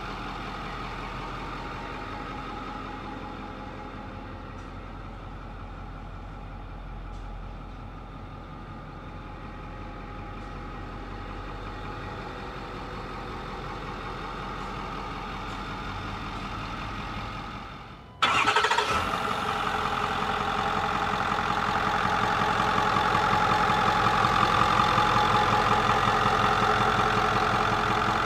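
Ford 6.4 L Power Stroke turbo-diesel V8 idling steadily. About 18 seconds in it becomes abruptly louder and clearer, heard close up from the open engine bay.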